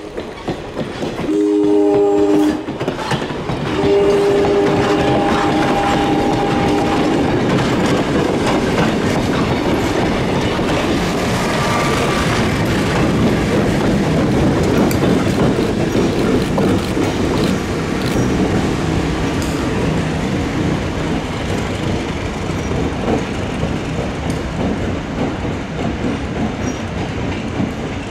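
Horn of a Montreal Locomotive Works RS18u diesel locomotive sounding a short blast, then a long one of about four seconds. It is followed by the locomotive and its passenger train running past steadily, the diesel engine rumbling and the wheels clicking over the rail joints.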